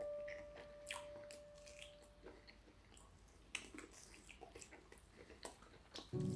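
Faint chewing and biting of a person eating chicken pieces by mouth, heard as soft, irregular small clicks and smacks. A thin steady tone fades away over the first couple of seconds.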